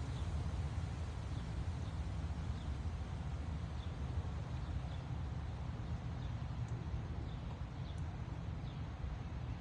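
Strong wind rushing and buffeting the microphone with a steady low rumble, while a bird chirps faintly about once a second.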